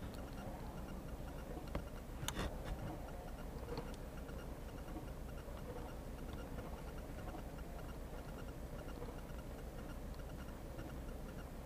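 Quiet steady low hum with a faint, evenly repeating ticking, and a few sharper clicks about two to four seconds in.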